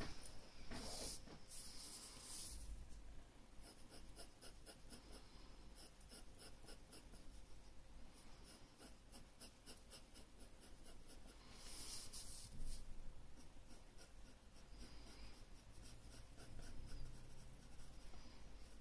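Graphite pencil scratching on drawing paper in a quick run of short shading strokes. There are louder, longer paper rustles twice, about a second in and around twelve seconds.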